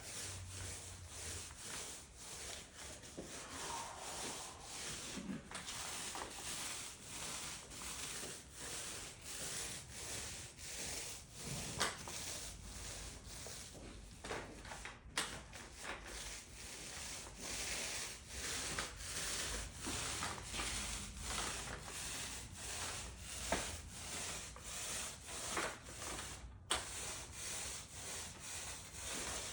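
A tool rubbed back and forth over a concrete floor, in steady repeated strokes roughly every half second.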